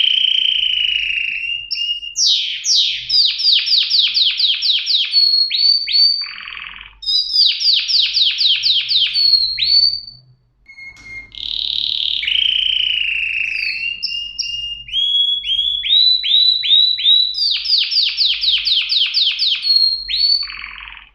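Domestic canary singing: loud phrases of held whistled notes alternating with fast trills of repeated sweeping notes, about five a second, with two short breaks between phrases.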